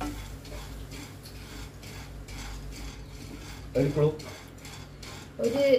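A wooden spatula stirs and scrapes dry-roasting seeds around a nonstick frying pan, a steady rustling scrape. A short bit of voice comes about four seconds in and again near the end.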